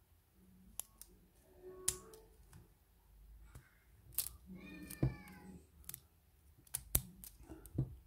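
Small metal clicks and scrapes of tweezers working inside a lock cylinder, picking out its pins and springs, a few sharper ticks standing out. About halfway through there is a brief call whose pitch bends.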